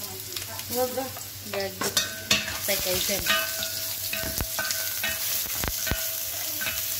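Cooking oil sizzling steadily around julienned strips in a nonstick pot, with a spatula stirring and knocking against the pan several times.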